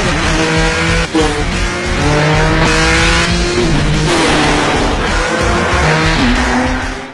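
Racing car engine accelerating hard, its pitch climbing and dropping back at each gear change several times, over music. It cuts off suddenly near the end.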